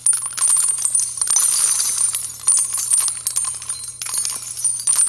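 Jingling, tinkling metallic sound effect, a dense run of small clinks like shaken bells or coins, over a steady low hum.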